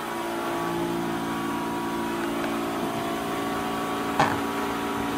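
DW electric fuel pump running steadily with the engine off, a hum of several steady tones, pressurising newly built fuel lines for a leak check. A single short knock about four seconds in.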